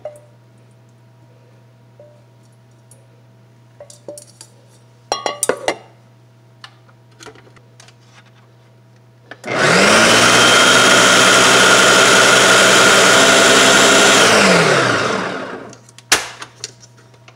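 Food processor motor starts a little past halfway, quickly rising in pitch, runs loud and steady for about five seconds on a bowl of black beans, then winds down with a falling pitch. Before it come a few short knocks and clatters.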